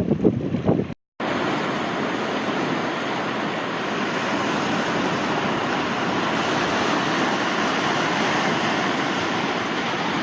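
Gusty wind buffeting the microphone, then, after a brief cut about a second in, a steady even rush of wind and water from a boat moving over the sea.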